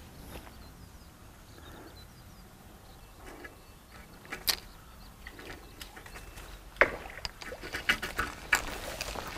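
Scattered sharp clicks and knocks over low steady background noise, coming more often in the last couple of seconds.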